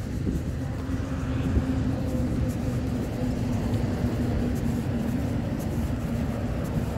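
A distant motor engine running with a steady low hum, over a constant low rumble.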